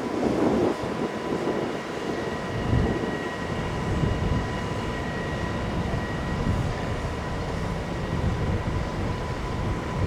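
A Long Island Rail Road train running at the station: a steady low noise with a faint steady whine over it.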